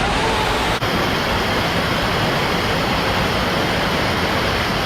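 Steady rushing of a waterfall and stream, a dense, even roar of water.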